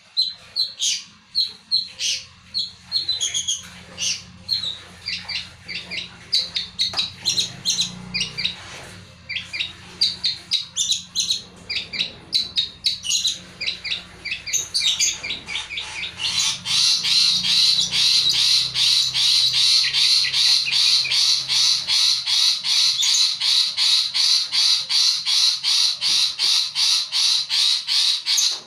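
Long-tailed shrike (pentet) singing a varied, mimicry-filled song of short, harsh and chirping notes. About 16 s in, it breaks into a rapid, unbroken run of notes, several a second, that keeps going.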